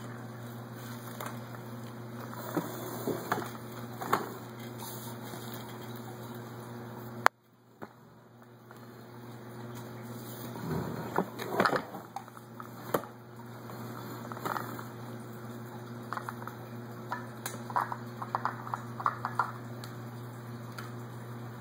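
Small clicks and knocks of plastic toy food and a plastic toy bowl being handled, over a steady low hum. A sharp click comes about seven seconds in, after which the sound briefly drops away, and a flurry of light taps comes near the end.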